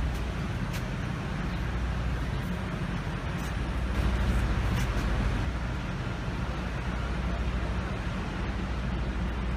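A truck's engine idling close by, a steady low rumble under the hiss of street traffic, a little louder about four seconds in.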